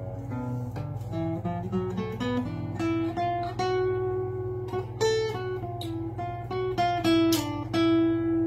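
Acoustic guitar fingerpicked in a blues style: a melody of single plucked notes, some held and ringing, over a steady low bass.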